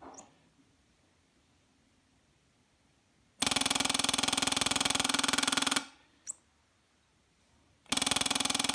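Ford Model T ignition coil buzzing in two bursts of about two and a half seconds each, its vibrator points chattering rapidly as the tester fires it over and over. A single click falls between the bursts. The coil's vibrator spring tension has just been raised a little to bring up its firing time.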